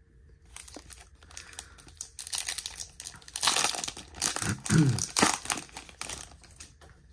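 Plastic wrapper of a Topps baseball card pack crinkling as it is torn open by hand, loudest from about three to six seconds in.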